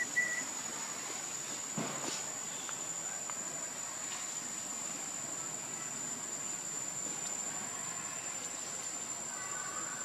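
Insects droning steadily at one high pitch, with a brief high chirp right at the start and a faint click about two seconds in.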